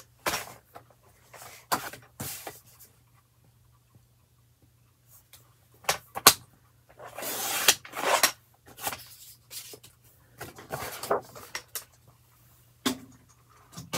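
A sliding paper trimmer is handled on the desk, with a few sharp plastic clacks as it is set down over the sheet. About seven seconds in, its blade carriage slides along the rail and cuts through the paper in one swishing stroke of just under a second. Paper shuffling and rustling follows.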